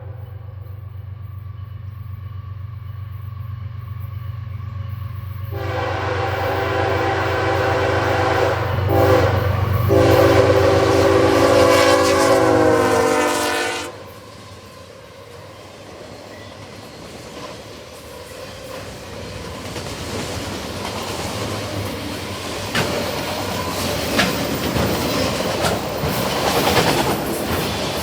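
Diesel freight locomotive sounding its multi-note air horn, faint at first and then loud in long blasts with two short breaks. The chord drops in pitch as the locomotive passes and cuts off, with the engine's low drone beneath. The rolling rumble and wheel clicks of autorack freight cars going by follow and grow louder.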